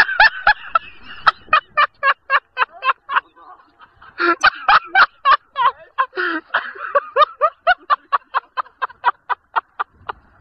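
Someone laughing in rapid, evenly spaced bursts, about four a second, breaking off briefly about three seconds in and then carrying on until just before the end.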